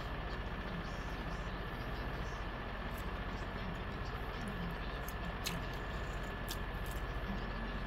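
Steady low hum with a thin, faint high whine, broken by a few soft clicks from chewing and a fork on the plate.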